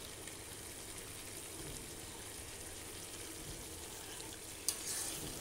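Mutton and potato pieces sizzling steadily in a wok as a thin, mixed meat-masala paste is poured in and stirred through. There is a single light knock about four and a half seconds in.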